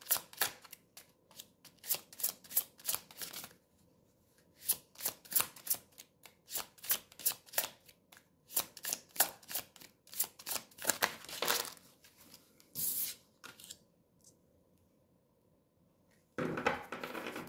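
A deck of tarot cards shuffled by hand: runs of quick flicking clicks, several a second, broken by short pauses. A quiet gap of a few seconds comes before a final rustle near the end.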